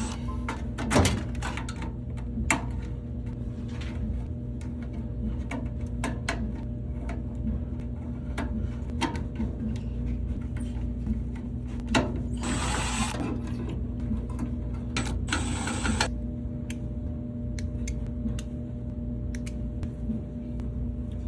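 A steady mechanical hum with scattered clicks and knocks, and two short hissing bursts a little past halfway through.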